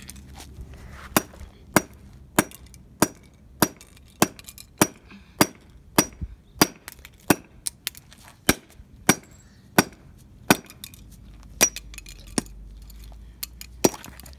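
Claw hammer repeatedly smashing a small speaker on asphalt: a steady run of sharp metallic blows, a little under two a second, starting about a second in.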